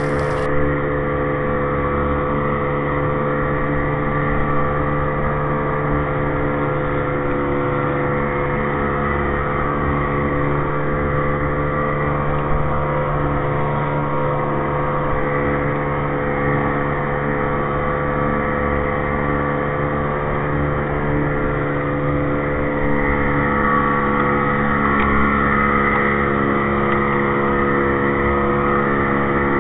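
Outboard engine of an inflatable boat running steadily at an even speed, rising slightly in level about two-thirds of the way through.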